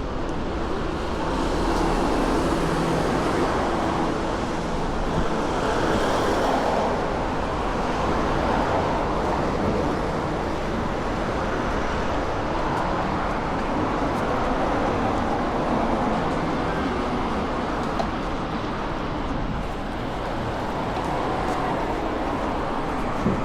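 Steady city-street traffic noise, a little louder for a few seconds near the start.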